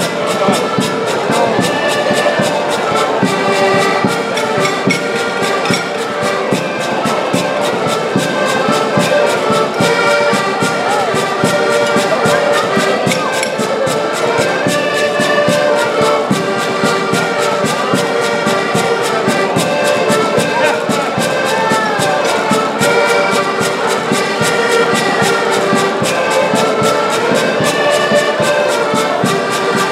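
An ensemble of several accordions, mostly diatonic button accordions, playing a traditional Portuguese folk tune together, steady and unbroken.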